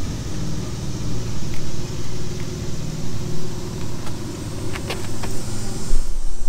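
Low, steady rumble of a motor vehicle engine running, with a couple of faint clicks about five seconds in.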